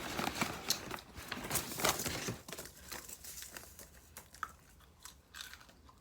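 Close-up eating sounds: crunchy chewing with some crinkling. The crackle is dense for the first two seconds or so, then thins to quieter scattered clicks.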